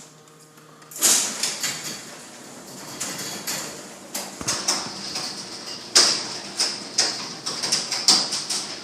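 Garage door rattling and clattering as it moves, starting suddenly about a second in, with irregular knocks and metallic rattles throughout.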